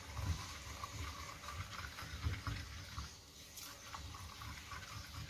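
Granite pestle pounding a wet chili-garlic paste in a granite mortar: soft, dull thuds about three a second, with a wet squelch of the paste.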